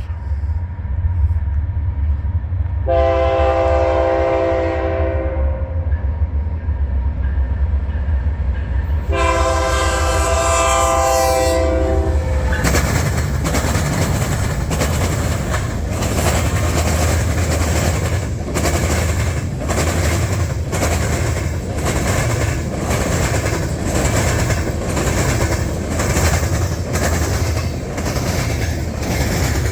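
Freight train passing: diesel locomotives rumble as the multi-chime air horn sounds two long blasts, the second longer. The rail cars then roll by, their wheels clicking over rail joints about once a second.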